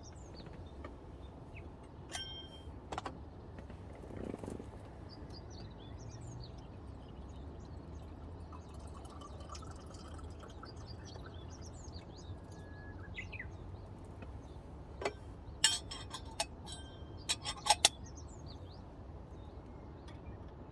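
Sharp clicks and knocks, a couple early and then a quick cluster of the loudest ones about three-quarters of the way through, over a steady low rumble with many short high chirps.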